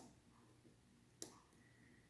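Single sharp metallic click about a second in from a lock pick working the pin tumblers of a Schlage Primus lock cylinder, otherwise near silence.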